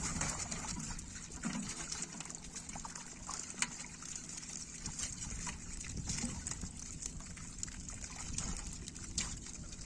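Pond water sloshing and trickling as hands work through a fishing net and sort fish in shallow water, with scattered small splashes and clicks, one sharper click about a third of the way in.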